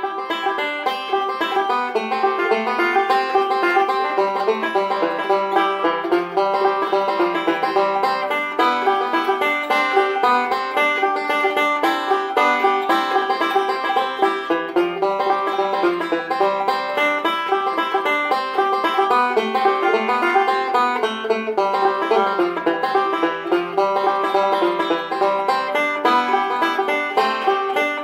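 Background music: fast plucked banjo in a bluegrass style, running steadily throughout.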